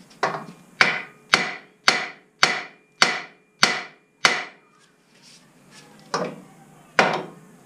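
Hammer blows on steel front-suspension parts, knocking a suspension joint loose. Eight ringing strikes come at about two a second, then after a short pause two more.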